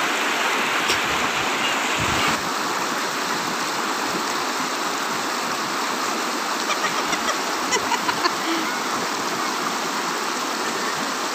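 Shallow rocky river rushing over rapids: a steady, loud rush of water, with a few brief ticks about two-thirds of the way through.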